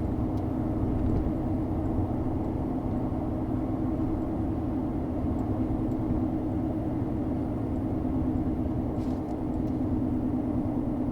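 Steady road and engine noise of a car driving at speed, heard inside the cabin, with a constant low drone.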